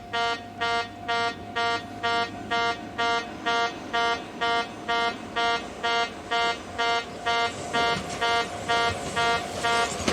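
Railway station in-station level-crossing warning buzzer of the older trumpet-like tone, sounding in even beeps about twice a second. The noise of an approaching train rises beneath it in the last couple of seconds.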